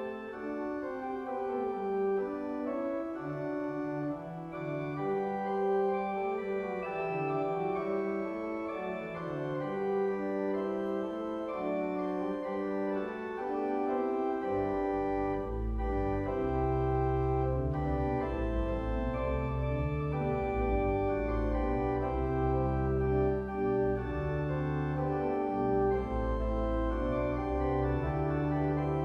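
Organ playing slow, sustained chords; about halfway through, deep bass notes come in underneath.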